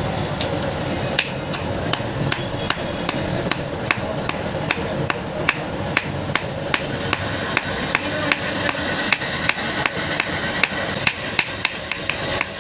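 A blacksmith's hammer striking iron being forged, the blows coming in a steady rhythm of about three a second over a continuous rushing background noise.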